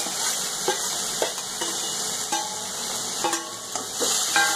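Mixed vegetables sizzling as they are stirred into a tempering of hot oil with mustard seeds and asafoetida, with a steady hiss throughout. A spoon clinks and scrapes against the pan about five times.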